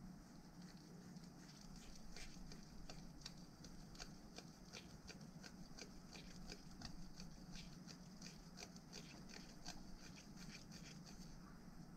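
Faint, quick rubbing and scuffing strokes of a cloth worked along a landing-net handle, about two or three a second, irregular, over a low steady hum.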